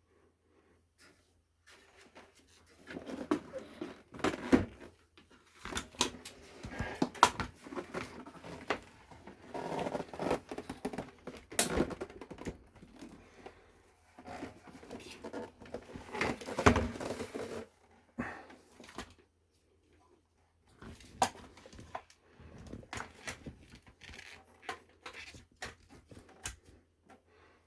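Handling noises: irregular clicks, taps and rustling, in bursts with short pauses, quietest about two seconds in and around twenty seconds in.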